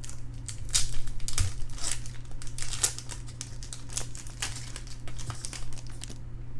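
Baseball trading cards and their pack being handled and flipped through: irregular crinkling and rustling with small sharp clicks.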